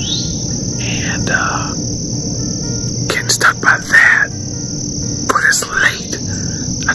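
Steady high-pitched drone of crickets or other insects, with short sweeping bird calls over it, the loudest about three to four seconds in.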